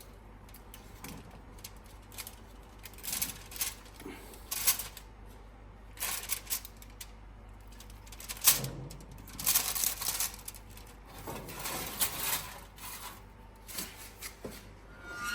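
Irregular clicks, knocks and short scrapes of kitchen utensils and cookware being handled, with a few sharper clanks about halfway through.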